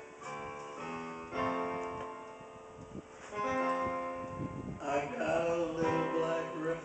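Piano playing slow chords, each struck and left to ring, as an introduction to a song. About five seconds in, the music gets louder and busier.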